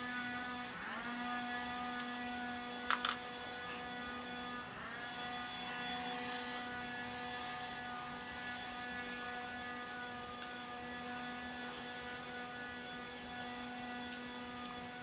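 A steady hum with evenly spaced overtones. It briefly drops and climbs back to pitch about a second in and again near five seconds. A couple of sharp clicks about three seconds in.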